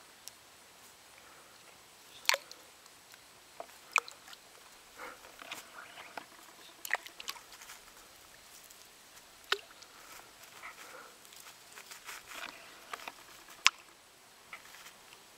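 Small pebbles clicking and clacking as they are picked up from the gravel and tossed into shallow lake water, in irregular single knocks with a few louder, sharper clacks spread through.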